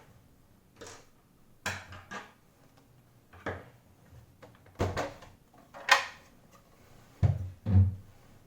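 Irregular clicks and knocks of oscilloscope case parts being handled and set down during disassembly, with two heavier thumps near the end.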